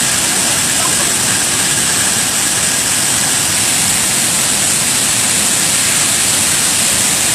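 Ban Gioc Waterfall roaring close by: a loud, steady rush of falling water with no let-up.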